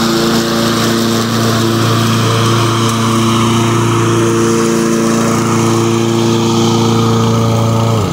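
Walk-behind lawn mower engine running steadily at a constant speed, cutting off suddenly at the very end.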